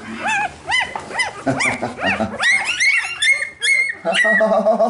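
Newborn golden retriever puppies squealing and whining: many short, high cries that rise and fall, in quick succession from several pups at once. The pups are hungry and calling as their mother comes to nurse them.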